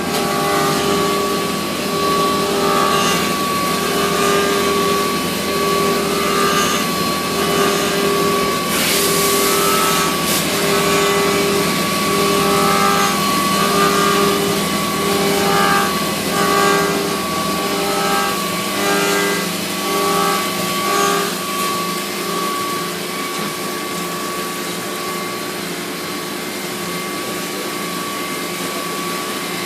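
Mazak 410A vertical machining center running, a steady whine under a repeating pattern of short motor tones about once a second that stops about 21 s in, leaving the steady running. A brief hiss sounds about 9 s in.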